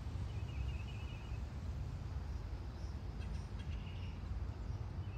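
Outdoor ambience: a steady low rumble, with two short high-pitched buzzing trills, one just after the start and another past the three-second mark.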